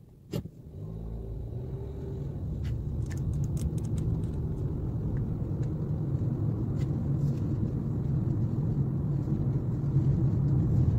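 Car cabin road noise and low engine rumble building steadily as the car pulls away from a stop and gathers speed. A sharp click comes just at the start, and a few light ticks come about three to four seconds in.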